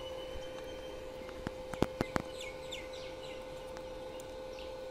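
Steady hum from a solar-fed inverter welding machine idling with no arc struck, with a few sharp clicks around two seconds in and short bird chirps later on.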